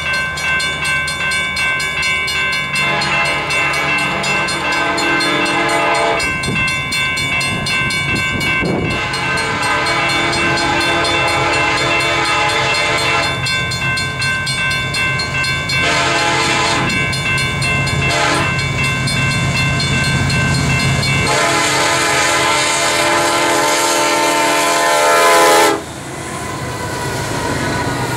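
Diesel freight locomotive's multi-chime air horn sounding a series of long blasts as the train approaches, the last one held and then cut off sharply about 26 seconds in, with the low rumble of the locomotives and railcars going by underneath and continuing after the horn stops.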